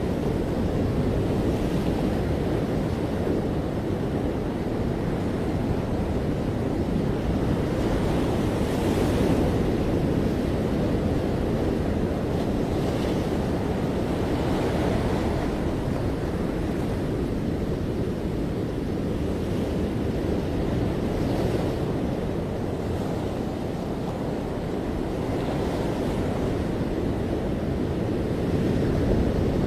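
Ocean surf washing onto a beach: a steady rush of water with swells of hiss every few seconds as waves break and run up the sand.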